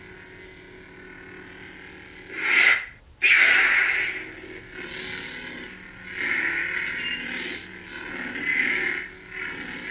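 Lightsaber sound board playing the 'Nightstorm' sound font: a steady hum, swelling into a whoosh each time the blade is swung. About three seconds in the sound drops out for a moment and comes back with a sudden loud burst.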